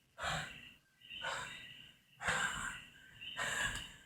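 A person breathing hard and out of breath after exercising, with about four heavy breaths roughly a second apart.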